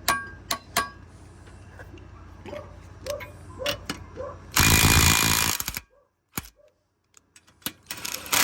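Hyper Tough 12V brushed cordless impact driver hammering for about a second as it breaks loose a bolt torqued to 100 foot-pounds, with a shorter burst near the end. Light clicks and knocks of the socket and tool being handled come before.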